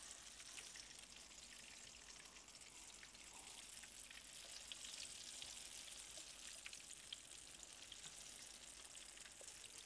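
Apple fritters shallow-frying in hot oil in a skillet: a faint, steady sizzle with fine crackling.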